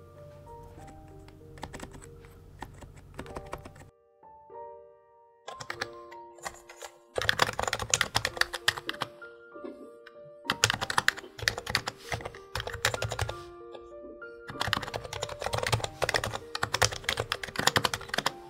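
Fast typing on a Topre electrostatic-capacitive keyboard: dense runs of key clacks in three loud stretches of a few seconds each, with softer typing at the start. Background music with steady melodic notes plays throughout.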